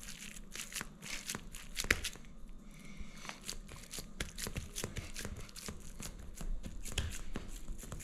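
Hands pressing and packing moist smoked-fish dip into a small oiled serving dish: a run of small irregular crackles and clicks.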